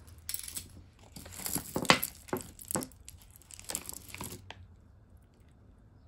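Crinkling and rustling of packaging handled by hand, with small clicks and taps, for about four and a half seconds before it stops.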